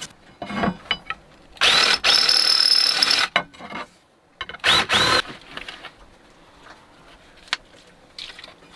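A small electric power tool runs twice: once for about a second and a half, speeding up and winding down, then briefly again. A few knocks come before it.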